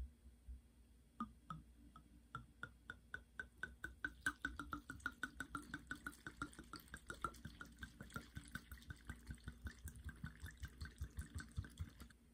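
Red wine glugging as it is poured into a tall glass jar packed with sliced fruit: a quick, even run of glugs about five a second that starts about a second in and cuts off just before the end.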